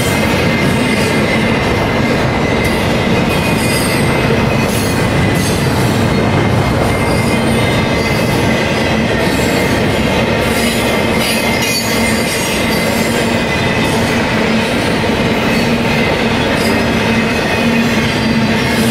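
Double-stack intermodal freight train's well cars rolling past at steady speed. A continuous loud rumble of steel wheels on rail carries a steady, thin high wheel squeal and scattered clicks.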